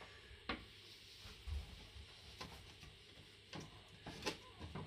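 Wooden track-cleaning block wrapped in denim being wiped along HO model railway rails, giving a handful of faint clicks and taps about a second apart.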